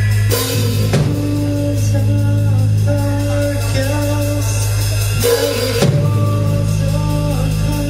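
Rock band playing live: drum kit and electric guitars over a steady low bass, with cymbal crashes about half a second and five seconds in.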